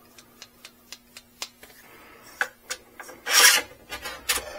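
Folded e-bike handlebar stem handled and lifted upright: light clicks about four a second at first, then sharper clicks and a brief loud scraping rub about three and a half seconds in.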